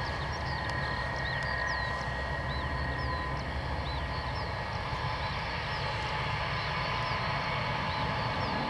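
Distant aircraft engine running with a steady whine over a low rumble, while a bird chirps a short high note about twice a second.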